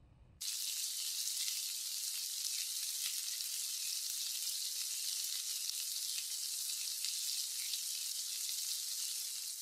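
Food sizzling as it fries in a hot wok: a steady hiss with small crackles that starts suddenly about half a second in.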